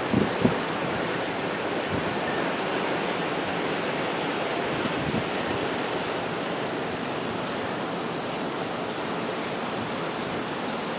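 Hurricane wind blowing steadily as an even rushing noise, with a few gusts buffeting the microphone in the first half second.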